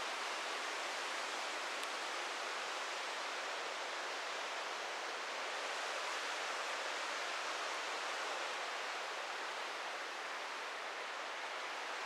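Steady rush of flowing and falling mountain river water: an even, unbroken hiss.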